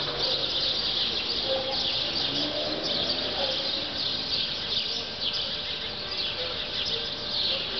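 A flock of small birds chirping together: a dense, continuous chorus of quick, high, overlapping chirps.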